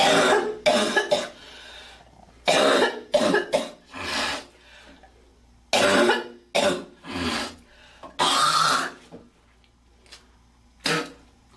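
A girl coughing repeatedly in short fits of two or three coughs, with pauses of a second or so between fits and a single cough near the end.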